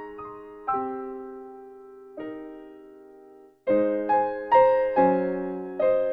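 Background piano music: single notes and chords struck and left to ring out, a brief gap about three and a half seconds in, then louder, fuller chords.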